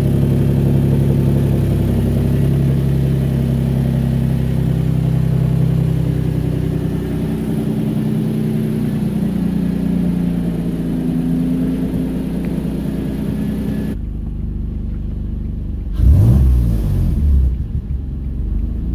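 Turbocharged Nissan 350Z's 3.5-litre V6 idling cold on its first start in months, with an exhaust leak. After an abrupt change in the sound, the engine is revved once, rising and falling quickly.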